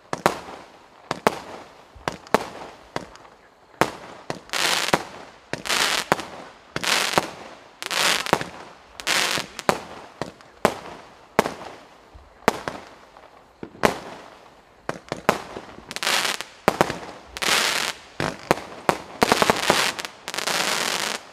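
Benwell 'Midnight Mayhem' 25-shot firework cake firing. Sharp shots and bursts come about once a second, many trailed by a second or so of crackling hiss. Near the end they crowd into a dense run of rapid crackling pops.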